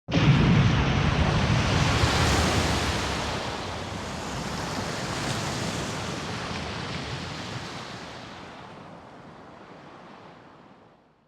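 A drama sound effect: a sudden heavy rush of noise with a deep rumble that starts at once and then dies away slowly over about ten seconds.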